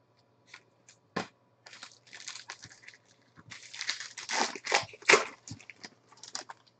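Clear plastic wrapper of a trading-card pack being torn and peeled open by hand, crinkling and crackling. There is a sharp snap about a second in, and the rustling is loudest about four to five seconds in.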